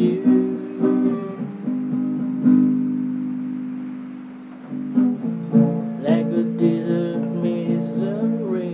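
Acoustic guitar strumming chords. About two and a half seconds in, one chord is left to ring and fade, and the strumming starts again about five seconds in.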